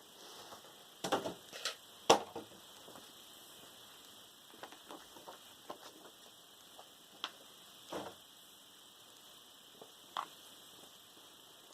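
Scattered clicks, taps and light rustles from hands handling a graphics tablet, its accessories and packaging, with a cluster of sharper knocks between about one and two and a half seconds in, the sharpest near two seconds.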